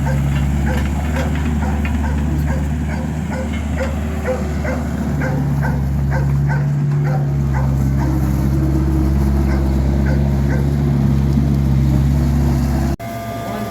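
A machine running with a steady low hum and a regular ticking a few times a second; it cuts off suddenly near the end.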